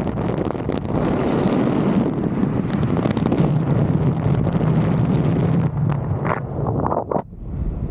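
Heavy wind buffeting the microphone, with a steady low rumble beneath it, dropping away briefly near the end.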